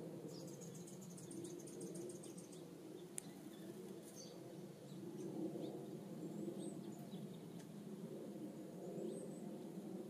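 Faint outdoor ambience: small birds calling high and thin, with a quick run of repeated notes in the first couple of seconds and then scattered chips, over a steady low background noise. One sharp click about three seconds in.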